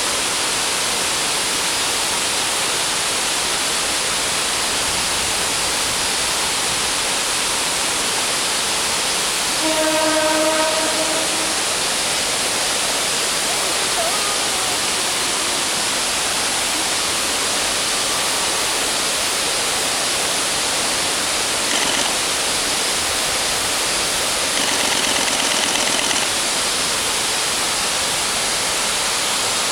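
Ryumon Falls waterfall: a steady, loud rush of falling water. A KiHa 40 diesel railcar's horn sounds twice over it, a held blast about a third of the way in and a second one near the end.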